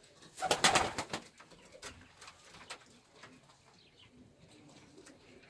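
Feather-footed domestic pigeons cooing in a small wooden loft, with a brief loud clatter about half a second in.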